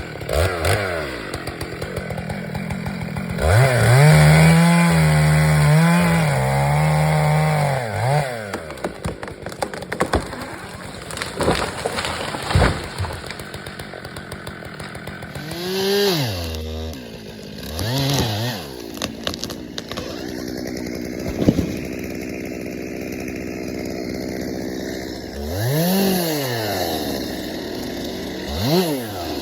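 Stihl two-stroke chainsaw felling a leaning cherry tree: held at full throttle in the cut for about four seconds, then dropping back to idle between several quick revs. A single sharp crack stands out about two-thirds of the way through.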